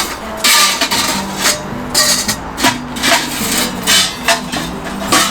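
Background music with a steady melody, over loud, irregular knocking and scraping noises.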